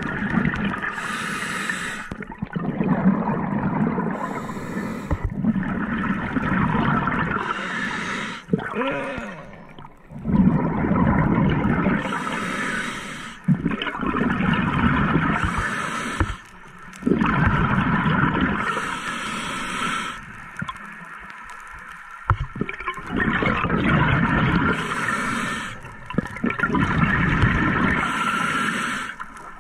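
Scuba diver breathing underwater through a regulator: a short hissing inhalation, then a long bubbling, gurgling exhalation, repeating every few seconds.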